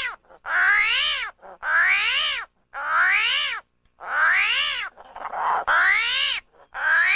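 An animal crying over and over, about six times, roughly once a second; each cry rises and then falls in pitch, much like a meow.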